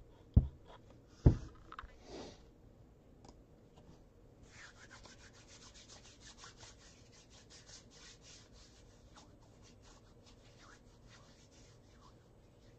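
Two sharp thumps about a second apart, then several seconds of faint, rapid scratchy clicking, like handling or tapping at a desk.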